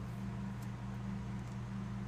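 Steady low hum with a faint hiss, with one or two faint ticks.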